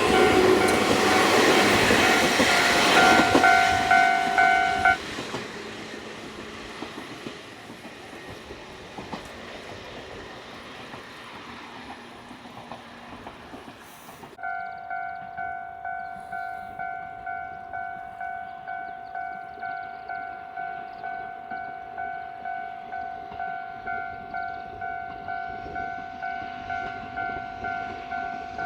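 A Hokuriku Railroad 7000 series train passes in the first five seconds, while a level-crossing alarm rings with a two-tone electronic clang. The train noise and the alarm stop together. About halfway through the alarm starts again, ringing evenly at about one and a half strokes a second, which warns of another train.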